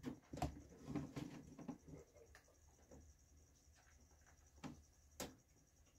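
Faint rustling and small scratchy clicks from handling, busiest in the first two seconds, then near silence broken by a few isolated sharp clicks.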